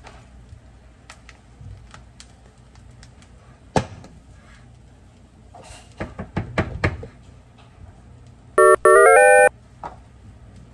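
A paper ramen cup knocked upside down onto a ceramic plate, then a hand patting and tapping the cup's bottom several times to free the packed fried rice. Near the end a short, bright electronic jingle of a few stepping notes plays, the loudest sound, as a success sound effect.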